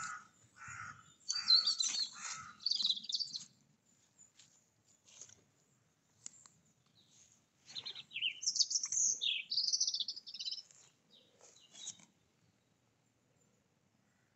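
Small songbirds chirping in two spells of short high notes, the second with a run of quick falling notes.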